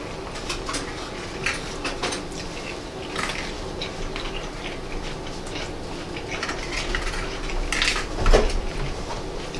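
Plastic fork scraping and tapping in a disposable bowl while food is picked out, in short irregular clicks and scrapes, with a louder clatter about eight seconds in.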